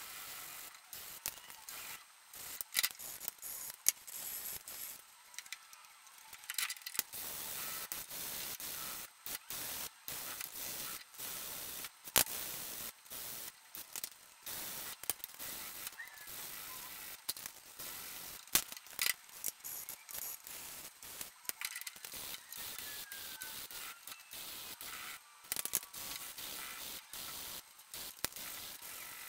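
Sandpaper on a sanding block rubbed by hand across the end of a wooden tray side, a quick run of scratchy strokes with short pauses, smoothing the joint flush while working up through the fine grits. A few sharp clicks stand out now and then.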